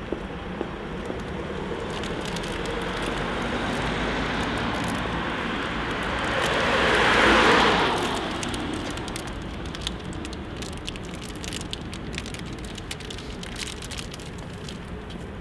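Street traffic: a passing car, its engine and tyre noise swelling to a peak about halfway through and fading away, followed by scattered light clicks.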